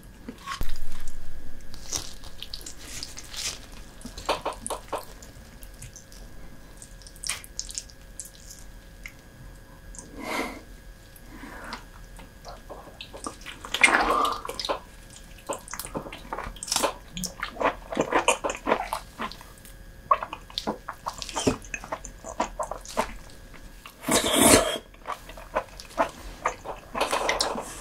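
Close-miked eating sounds of soy-sauce-marinated raw lobster: chewing and biting with many irregular clicks and smacks, and a louder burst near the end.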